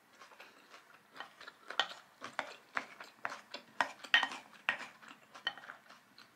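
Close-miked eating sounds: a mouthful being chewed with short wet clicks about twice a second, mixed with a wooden spoon scraping and tapping as it scoops rice in a bowl.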